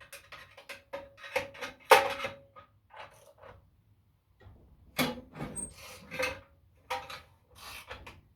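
Clinks, knocks and scraping from metal parts and hand tools being handled on a workbench, with a brief ringing tone. The loudest knock comes about two seconds in, and another cluster follows around five seconds.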